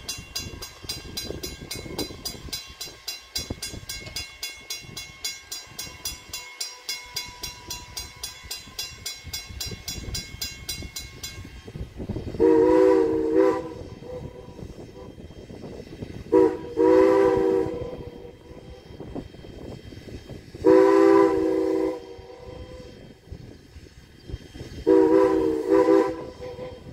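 Strasburg Rail Road No. 89, a 2-6-0 steam locomotive, working toward the camera. Its bell rings in a fast, even rhythm for the first half. Then its chime whistle sounds four blasts of about a second and a half each, a few seconds apart.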